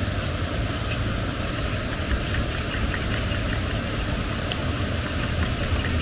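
Steady low rumble of a portable gas stove's burner flame, with scattered light crackles from the sauce cooking in the pan over it.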